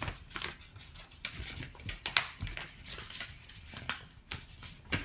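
A square sheet of paper being opened and folded by hand, with irregular crinkles and crackles as it is handled and creased, and one sharper crackle about two seconds in.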